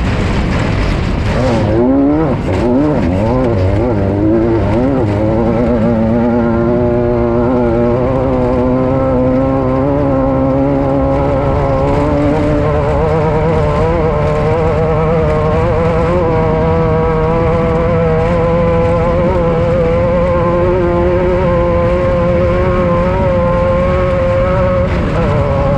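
Off-road race vehicle's engine running hard, its revs rising and falling quickly over the first few seconds, then held at a high, nearly steady pitch with a short dip near the end, over a constant rumble.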